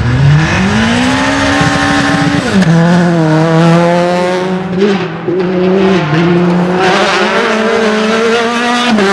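Rally car engine running hard: it revs up steeply in the first second, holds high, drops sharply about two and a half seconds in, then runs steadily on the throttle with brief dips. Tyres squeal in places.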